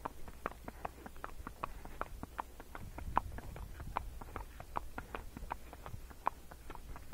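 Tennessee Walking Horse's hooves clip-clopping at a walk: quick, uneven clicks, several a second, over a low rumble.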